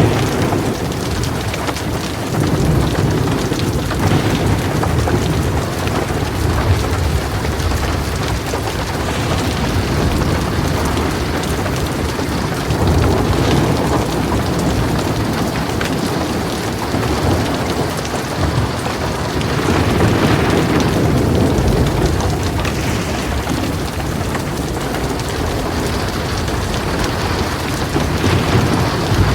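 Heavy rain falling steadily, with rolling thunder rumbling low underneath and swelling several times.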